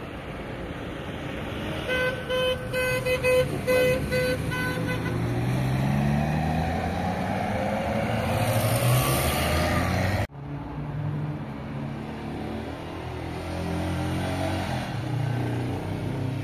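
A vehicle horn beeps about seven times in quick succession, then a vehicle's engine passes close by, rising and falling in pitch. The sound cuts off abruptly about ten seconds in, and a vehicle engine hums on after it.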